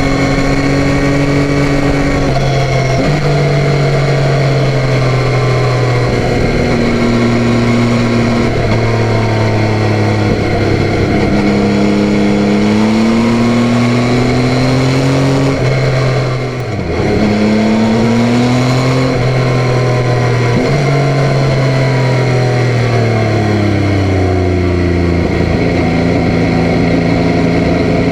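Yamaha Tracer 9's 890 cc inline three-cylinder engine pulling hard through the gears. Its pitch climbs in each gear and drops sharply at each upshift, several times in a row, with a brief lift off the throttle midway. Near the end the engine winds down as the bike slows, then runs at a steady note.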